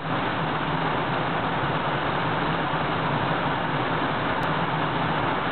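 Whitewater rapids pouring over a boulder drop: a steady rush of crashing water.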